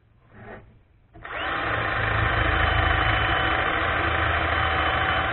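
Bosch GSB 1080-2-Li 10.8 V cordless combi drill drilling into a wooden plank. Its motor spins up about a second in with a short rising whine, runs steadily at full speed, then stops abruptly near the end, as its electric brake halts the chuck on trigger release.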